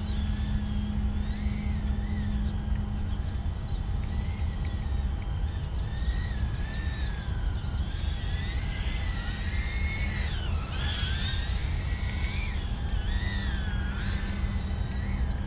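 A BetaFPV 85X micro quadcopter's 1105 brushless motors and propellers whining in flight on a 4S battery. The pitch rises and falls continually with throttle, busiest in the second half, with a deep dip in pitch about ten seconds in.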